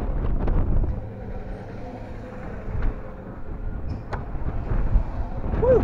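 Wind buffeting the microphone as an amusement-park airplane ride car circles, over a low rumble from the moving ride, with a few sharp clicks and a brief squeal near the end.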